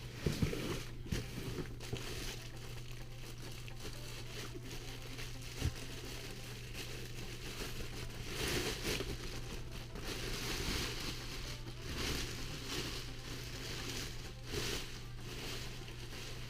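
Plastic bag crinkling and rustling as a bagged cylinder head is unwrapped, with a few knocks near the start and once more about six seconds in, over a steady low hum.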